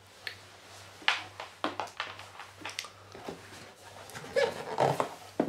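Handling noise from unpacking a laptop power cable and its box: a series of short, light knocks and rustles of cardboard and plastic, busier near the end.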